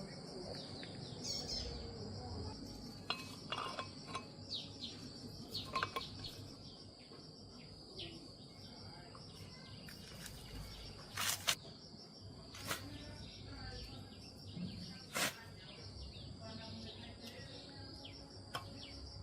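Sharp metallic clinks and knocks of metal tools and parts being handled, a scattered handful of them with the loudest pair about two thirds of the way through. Under them runs a steady high insect drone.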